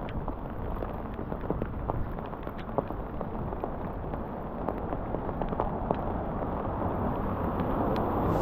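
Rain falling, with many small scattered ticks of drops over a steady low rumble that grows louder near the end.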